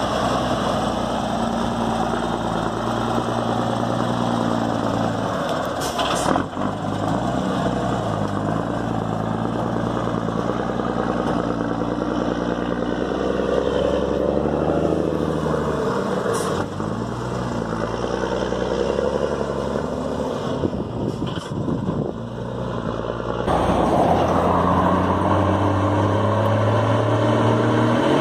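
Big Ford truck's turbo-diesel engine running, its pitch rising and falling as it is revved and pulls. The turbocharger has a comb fitted in its intake to make it sound louder. A few short clicks are heard, and near the end a falling whistle begins.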